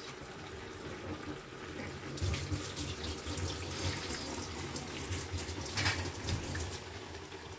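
Water running from a kitchen tap into a sink, coming on stronger about two seconds in and easing off near the end.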